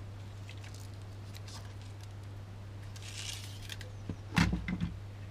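Light clicks and rustles of monofilament fishing line being handled at a workbench, with a brief hiss as the line is drawn out a little after three seconds. Near the end comes a knock of something set down on the bench top, all over a steady low hum.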